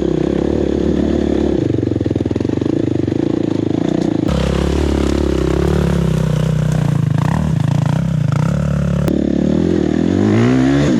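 Four-stroke enduro dirt bike engines running at low to mid revs while riding a rough track. The engine note keeps shifting. From about four to nine seconds in, pitches slide up and down and cross each other, and near the end the revs climb.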